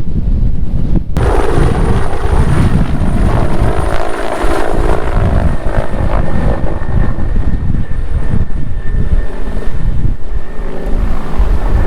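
Strong wind buffeting the microphone. From about a second in, a helicopter's turbine and rotors run steadily, with a thin high whine over the rumble.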